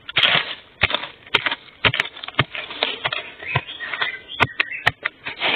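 Digging out a wild bamboo shoot: soil being struck and scraped around the shoot, with dry bamboo leaves rustling and irregular sharp knocks, about two a second.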